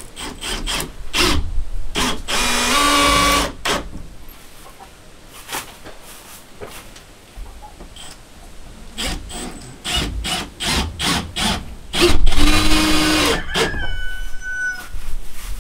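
Cordless drill running in two short bursts, about two seconds in and again about twelve seconds in, driving fasteners into a wooden hay-feeder frame, with scattered sharp knocks on the wood in between. Near the end comes a short high-pitched call that falls slightly in pitch.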